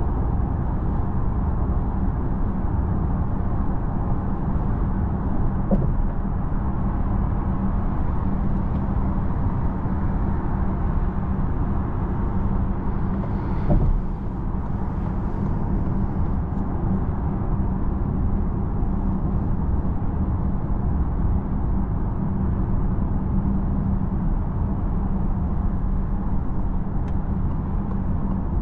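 Interior cabin noise of a Citroen C5 Aircross plug-in hybrid cruising at motorway speed: a steady roar of tyres and wind with a low hum underneath. There is a short click about six seconds in and another a little before the halfway point.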